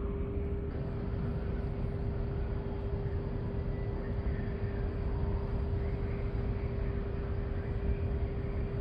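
Cruise ferry Silja Serenade's engines running as she gets under way: a low, steady rumble with a constant hum held on one note.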